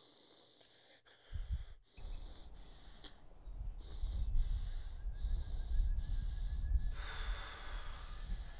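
A man breathing, over a low rumble that swells a few seconds in.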